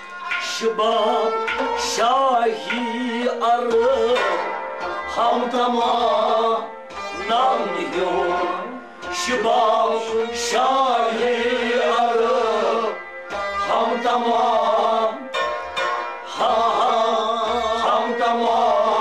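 A live ensemble performing a sung poem: a man singing a wavering melody over a harmonium, a goblet drum beating a steady rhythm, and bowed and plucked strings.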